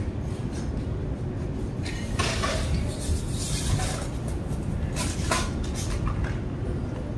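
Steady low rumble of city street traffic, with short hissing noises about two and five seconds in.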